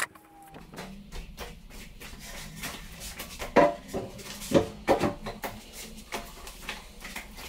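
Wooden vanity cabinet being handled and positioned in a small tiled bathroom: light knocks and scrapes of wood on tile, with a few louder knocks in the middle.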